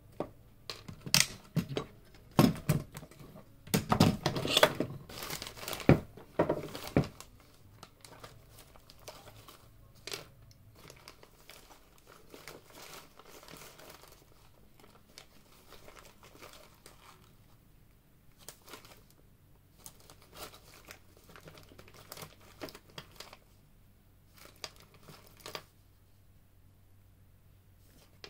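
Handling noise: crinkling and rustling with sharp clicks and light knocks, loudest and densest over the first several seconds, then sparser and quieter.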